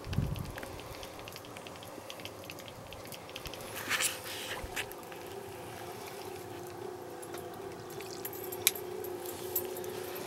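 Quiet ambience aboard a small fishing boat: a faint steady hum with scattered light knocks and clicks, a dull thump at the very start and a short rustle about four seconds in.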